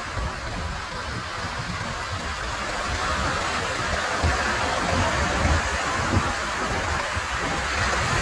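Small waves breaking and washing up a sandy beach: a steady rush of surf that swells a few seconds in, over a low rumble.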